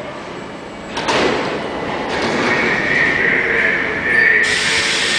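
R42 subway car standing at a station after its brakes squeal to a stop. A sharp knock about a second in as the side doors slide open, then a loud hiss starts suddenly about four and a half seconds in.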